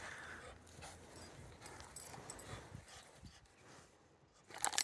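A pet dog making faint sounds as it moves about and plays, with scattered small clicks and scuffs and a louder scuffle near the end.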